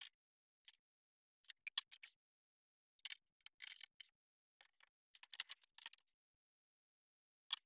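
Faint scattered clicks and light taps from small parts being handled, coming singly and in short irregular clusters.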